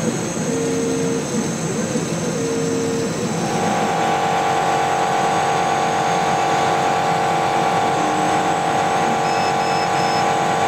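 Chinese CO2 laser cutter running a slow cut through 2 mm acrylic: a steady hiss of air and fan noise, with motor whine that starts and stops in short runs at first, then a steady higher whine from about three seconds in.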